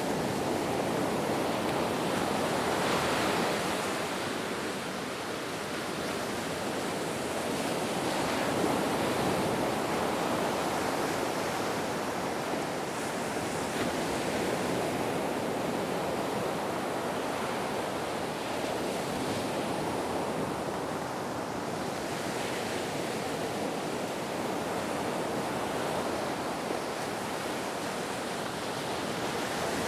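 Ocean waves washing onto shore: a continuous rush of surf that swells and eases gently every few seconds.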